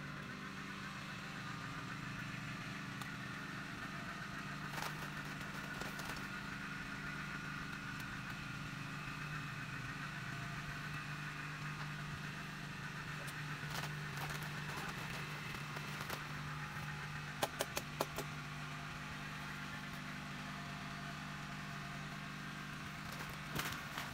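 A steady low engine hum, with a quick run of four sharp clicks or knocks about seventeen seconds in.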